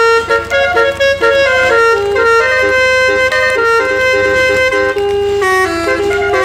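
A bus's multi-tone telolet (basuri) air horn playing a tune of short notes that step up and down in pitch, over a low steady rumble.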